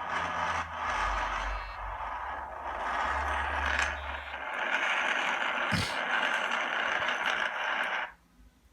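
A video's soundtrack playing through an iPhone 6 Plus loudspeaker that has just been reconnected, showing the speaker works again; it cuts off suddenly about eight seconds in.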